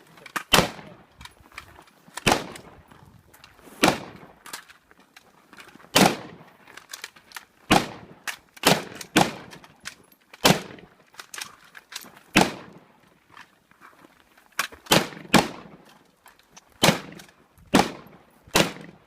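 Firearm gunshots fired singly at an irregular pace, around fifteen sharp reports, each with a short echoing tail. Fainter cracks fall between them.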